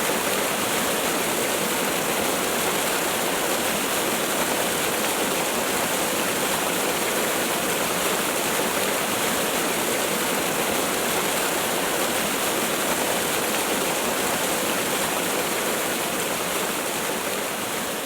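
A waterfall: a steady, even rush of falling water, with no other sound standing out.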